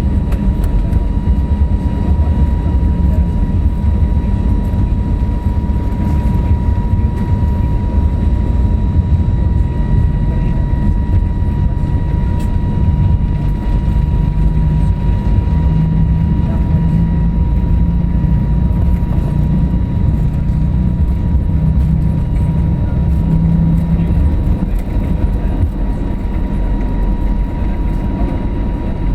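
Steady cabin rumble inside an Airbus A321neo climbing or cruising after takeoff: engine and airflow noise from its Pratt & Whitney geared turbofans, with a thin steady whine above the roar.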